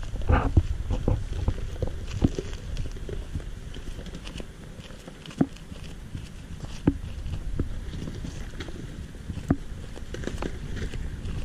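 Pickup truck crawling down a rocky dirt trail: a low steady rumble with scattered sharp clicks and knocks from loose rocks crunching and popping under its tyres.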